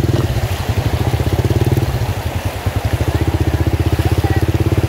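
Motorcycle engine running at low speed with a steady, rapid, even pulsing, easing off briefly about two seconds in and then picking up again.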